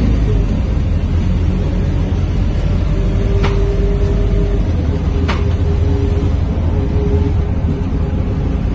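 Scania K230UB city bus under way, heard from inside the cabin: a low, steady diesel rumble with the even whine of its ZF automatic gearbox. Two short sharp clicks about two seconds apart come around the middle.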